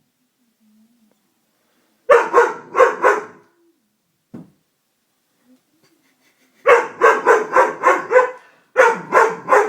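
Doberman barking in alarm at something unfamiliar: a quick burst of about four barks, a pause, then a long rapid run of barks through the last few seconds.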